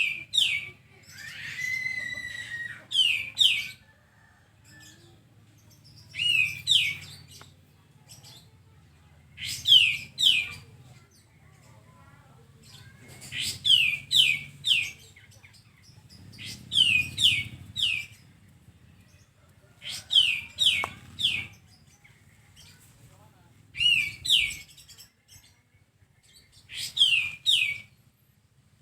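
A kapas tembak songbird singing. It repeats a short phrase of two to four quick, sharply falling whistled notes about every three to four seconds. Near the start there is a different call with a held whistle. A faint low hum runs underneath.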